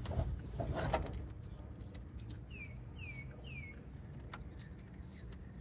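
A rustling noise in the first second, then a bird calling three short chirps that slide downward, about half a second apart, with a couple of faint clicks near the end.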